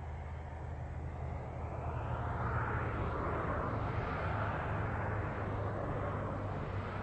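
A vehicle passing by, its noise swelling to a peak a few seconds in and then fading, over a steady low hum.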